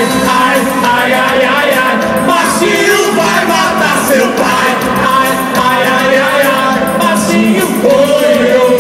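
Loud live band music over a concert PA, with a sustained melody line running through it.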